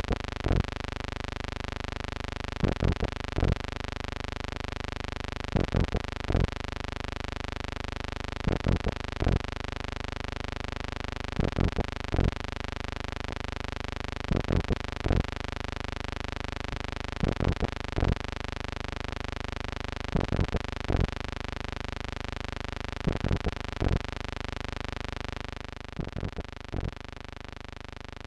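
A steady electrical hum, broken about every three seconds by a short cluster of three or four sharp clicks. Near the end the hum drops a little in level and sounds duller.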